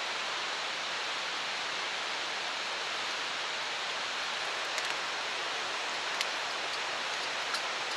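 Steady rushing outdoor noise, with a few faint clicks in the last few seconds.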